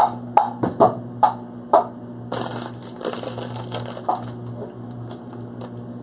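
A few sharp clicks and knocks from a plastic yogurt tub being handled, then, about two seconds in, a clear plastic bag of chia seeds crinkling and rustling for about three seconds.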